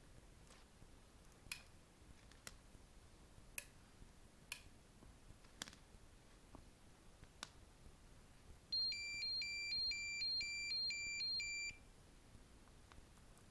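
Eaglemaster E8 car alarm playing a short electronic beeping tune of about seven alternating notes, lasting about three seconds and starting past the middle. Before it come a few sharp, separate clicks.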